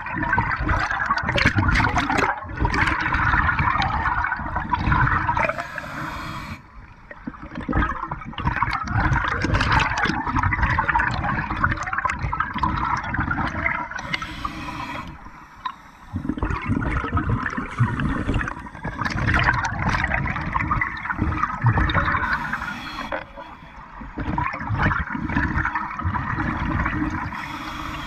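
Scuba diver breathing through a regulator underwater: long gurgling rushes of exhaled bubbles, each lasting several seconds, broken four times by a short hissing inhale.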